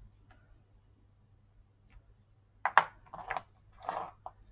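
Thick wood-cased Stabilo crayon pencils clacking against each other and the table as a hand sorts through them and picks one out: a few sharp clicks and a short rattle, starting a little past halfway.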